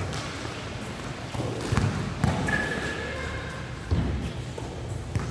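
A basketball thudding on an indoor court floor, about five separate thumps spread over a few seconds, each echoing in a large hall.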